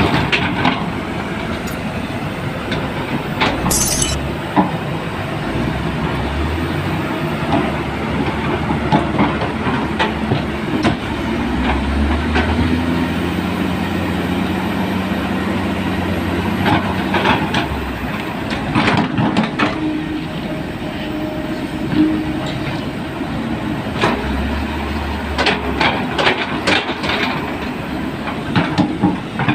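Diesel engines of crawler heavy equipment working under load, the engine note rising and falling, with frequent clanks and knocks of steel tracks and metal parts.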